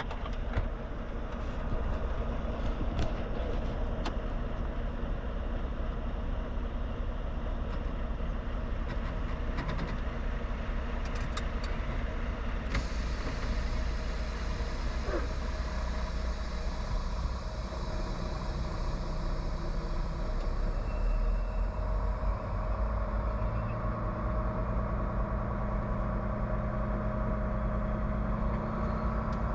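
Semi-truck's engine running as the truck pulls away, a steady low hum with a few clicks early on. A hiss comes in suddenly about thirteen seconds in, and a steadier engine tone settles in after about twenty-three seconds.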